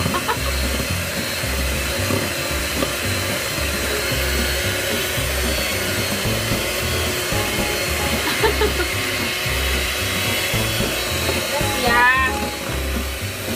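Electric hand mixer running steadily, its beaters whirring through cake batter in a steel bowl, over a low, regular beat of background music.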